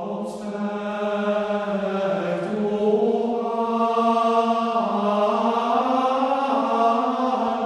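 Background music of sung chant: voices holding long, slowly changing notes over a steady low drone.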